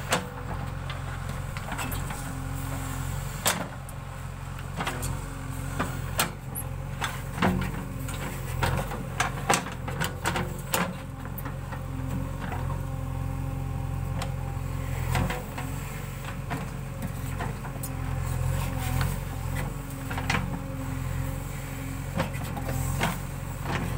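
A JCB backhoe loader's diesel engine runs steadily, with scattered sharp clanks and knocks.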